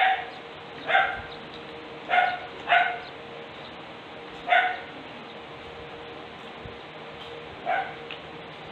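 A dog barking: six short, single barks spread irregularly, two of them close together about two seconds in.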